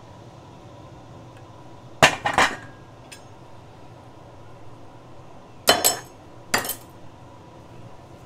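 Dishes and utensils being set down and handled on a table: a double clatter about two seconds in, then two more knocks around six seconds.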